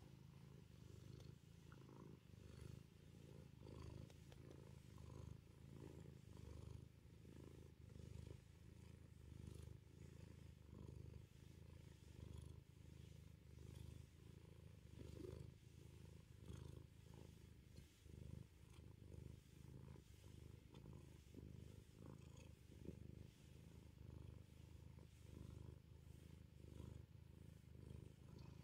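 Domestic cat purring faintly and steadily while being stroked on the belly, the purr swelling and fading about once a second with its breathing.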